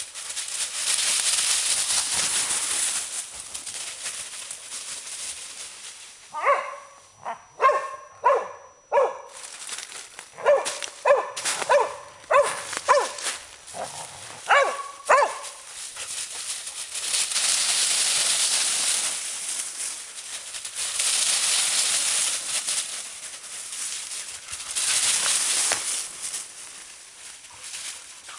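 A dog barking in quick play barks, about a dozen short barks in two runs in the middle, while dogs scramble through dry fallen leaves, the leaves rustling loudly near the start and again in several stretches near the end.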